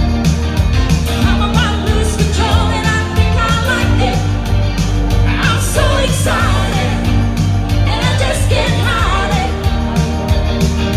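Live band music with a singer over bass and a steady drum beat.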